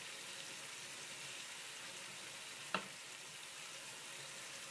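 Chicken strips sizzling steadily in vegetable oil in a frying pan, with a single light tap a little under three seconds in.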